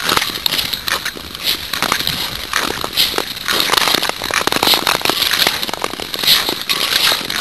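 Ice skate blades scraping and gliding over clear lake ice. The sound is a steady crackling with a scraping hiss at each stroke, about once a second.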